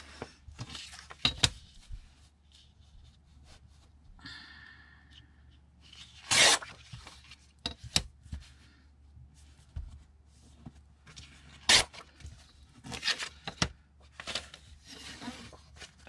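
Paper book page being torn against a cork-backed metal ruler in several short rips, the loudest about six and a half seconds in and another near twelve seconds. A few sharp knocks near the start as the ruler is set down on the wooden table.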